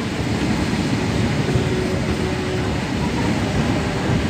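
Passenger train coach in motion, heard from inside: a steady rumble of wheels on the rails.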